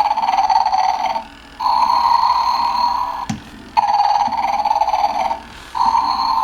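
Animated rocking Santa figure's electronic snoring from its small speaker: a steady series of about four long snores, each about a second and a half, with short pauses between and alternating slightly in tone.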